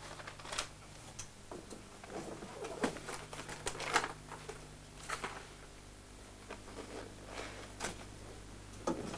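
Paper rustling and being shuffled on a desk, with scattered light clicks and knocks as things on the desktop are handled, over a steady low hum.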